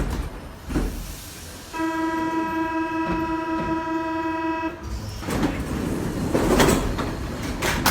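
Paris metro train's door-closing warning signal: a steady buzzing tone held for about three seconds, followed by several short surges of noise as the train carries on.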